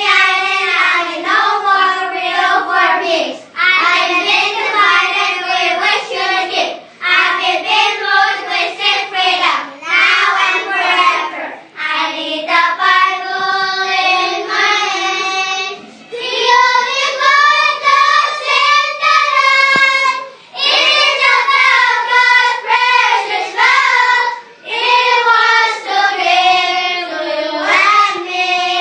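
A child singing a song in phrases of a few seconds, with short breaks between them.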